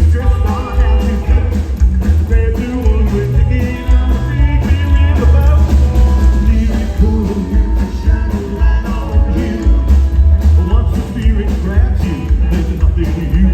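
Rockabilly band playing live and loud, with a steady driving drum beat over a heavy bass line and electric guitar lines.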